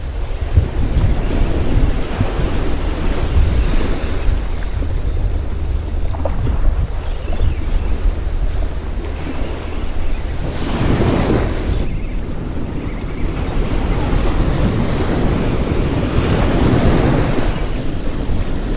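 Small waves washing in and breaking at the water's edge, with wind buffeting the microphone. There are two louder washes, about eleven seconds in and again near the end.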